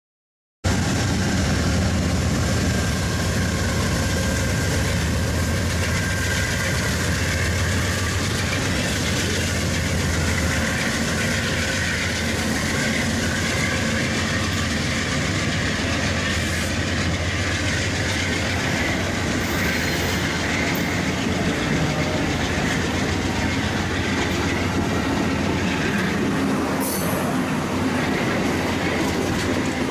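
Amtrak passenger train's stainless-steel cars rolling past close by, a steady rumble with wheels clacking over the rail joints. The sound cuts in abruptly about half a second in.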